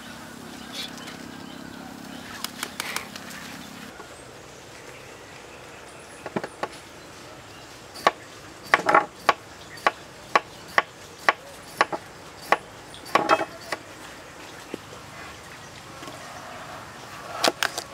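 Hand vegetable peeler scraping down a raw carrot in sharp strokes, about two a second, then a knife cutting through carrot onto a wooden board near the end.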